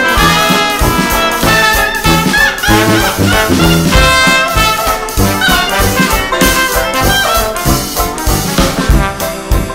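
Upbeat brass-band music in a swing-jazz style, trumpets and trombones over a steady beat.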